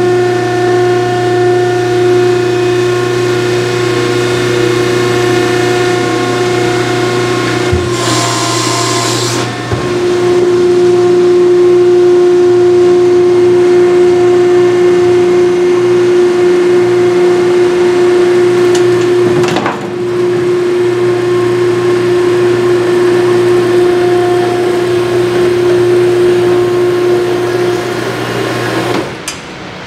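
Vertical baler's hydraulic power pack, driven by a 3-phase electric motor, running with a steady hum and whine as it works through a cycle. A hiss comes in about eight seconds in, and the pitch shifts again about twenty seconds in. The sound drops away just before the end.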